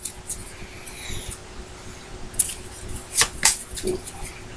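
Trading cards being handled and flipped through by hand: a faint rustle about a second in, then a few short, sharp card-on-card flicks in the second half.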